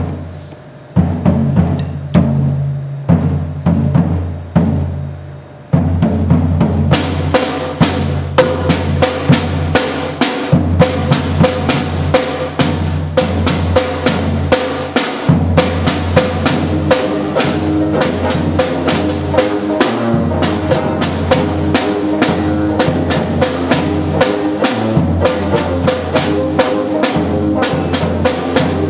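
A brass band playing: for the first six seconds separate heavy drum strokes and low bass notes, then from about seven seconds in snare drum, bass drum, banjo and horns all play together to a fast, steady beat.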